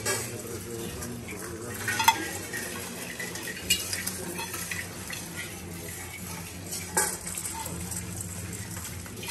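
Rice grains pouring and scraping on metal mandala offering plates, with metal rings clinking, as several people build mandala offerings. Sharp clinks stand out about two, three and a half and seven seconds in, over a low steady hum.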